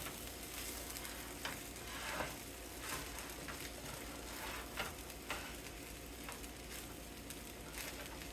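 Pork fried rice sizzling in a hot pan while a utensil stirs it, with a steady sizzle and irregular light scrapes against the pan.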